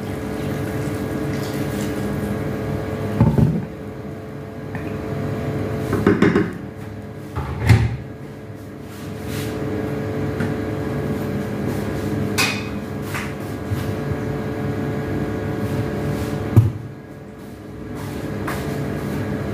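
Kitchen clatter: about five short knocks of cookware and utensils over a steady hum, the sharpest near the end.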